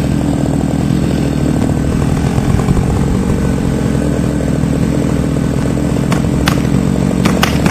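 An engine running steadily at a constant low speed, loud, with a few sharp clicks near the end.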